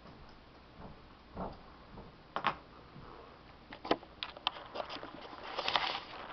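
Scattered light clicks and knocks that grow busier from about four seconds in, with a brief rustle near the end, as a handheld camera is moved and carried.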